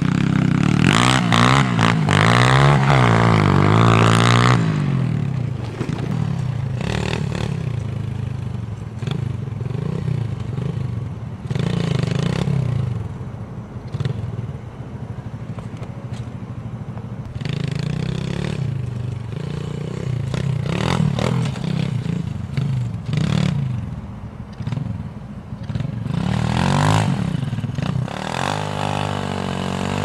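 107cc Honda-clone minibike's single-cylinder four-stroke engine revving up and down again and again as it is ridden, loudest in the first few seconds and again near the end.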